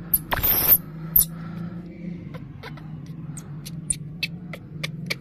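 Baby macaque giving one short harsh scream, then a run of small sharp clicks as it sucks and smacks on its fingers, over a steady low hum.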